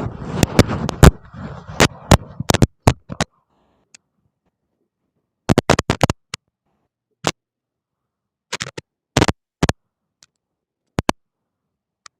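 Scratchy, rustling noise with sharp clicks for about the first three seconds, then a few sharp clicks in small clusters with silence between them.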